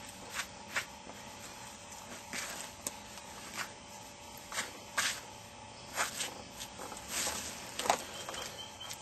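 Footsteps on crunchy dry ground: an irregular series of short crunches about a second apart.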